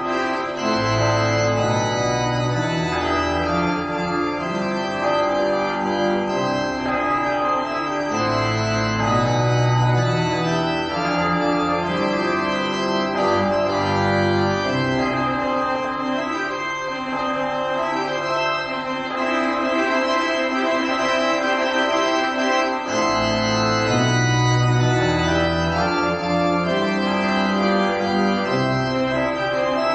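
Organ music: slow, sustained chords over a bass line that moves every second or two, accompanying a wedding procession down the aisle.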